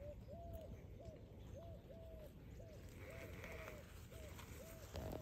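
Faint repeated animal calls: short notes at one steady middle pitch, about two a second, some held a little longer than others. A low bump near the end.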